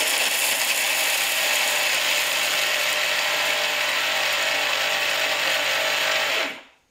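Electric mixer grinder running, its blades coarse-grinding roasted chana dal, sesame seeds and jaggery in a steel jar. It runs steadily with a low motor hum under the grinding noise, then cuts off and winds down near the end.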